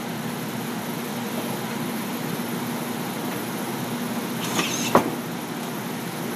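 Milwaukee cordless drill running steadily under load, turning a 1 3/4-inch bit through the wall of an explosion-proof junction box, with a steady hum. A short knock about five seconds in.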